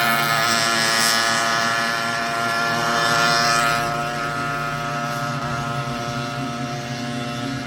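Go-kart engine running at steady speed, its note easing slightly lower and getting a little quieter; a high hiss drops away about four seconds in.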